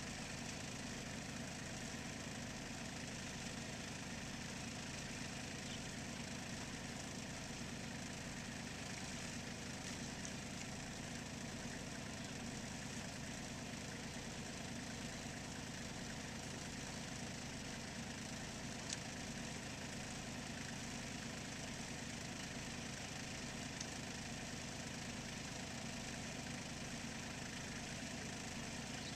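Small farm tractor engine idling steadily, with one brief sharp click partway through.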